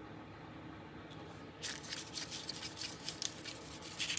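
Hands rubbing and pressing over crinkled paper, working gold on with the fingers, giving a run of paper rustling and crackling that starts about one and a half seconds in.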